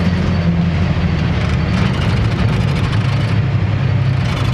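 Old pickup truck's engine running while driving, heard from inside the cab, with road and wind noise through the open window; the engine note drops a little about three seconds in.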